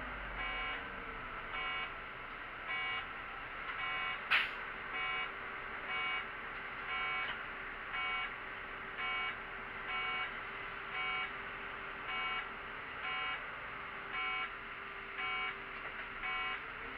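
Electronic warning beeper in a bus, sounding a short, even, multi-tone beep about once a second, over a steady low hum. A single sharp click about four seconds in.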